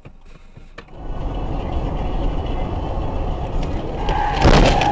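Car interior road and engine noise from a dashcam, starting abruptly about a second in. A sudden, very loud noise bursts out near the end as another car comes alongside at close range.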